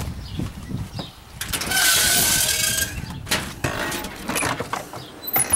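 A house door being opened: a loud scraping stretch of about a second and a half, then several sharp clicks and knocks from the doorknob and latch.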